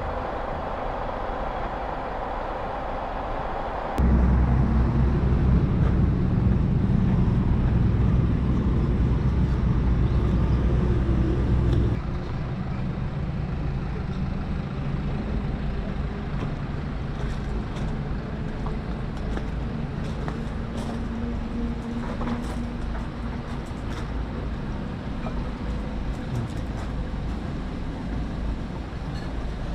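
Honda Africa Twin motorcycle on the road: steady engine and wind rumble with traffic noise. About four seconds in it jumps suddenly to a much louder low rumble, which drops back to the quieter road noise about eight seconds later.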